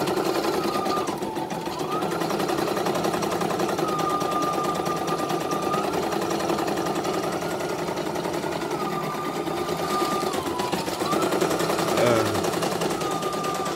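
CNY computerized embroidery machine stitching a design as a test run after repair: a fast, steady needle chatter over the tone of its motor, which dips briefly twice. A short falling sound comes near the end.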